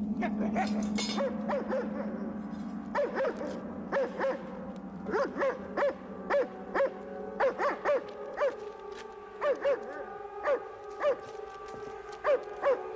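A dog barking over and over, short sharp barks often coming in quick pairs, with a low steady hum beneath in the first few seconds and faint held tones underneath later on.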